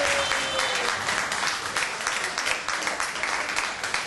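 Spectators clapping: a spatter of many separate hand claps that eases off slightly toward the end.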